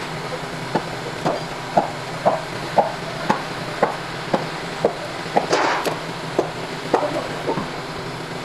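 Light, regular taps, about two a second, typical of a hammer working on the alternator during its bearing change, with a short scraping rush a little past halfway, over a steady hum.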